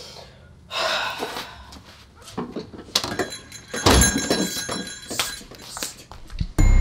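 Shop door opening and shutting with a thud, the bells hanging on it jingling and ringing on for a moment. Near the end a loud steady low rumble starts abruptly.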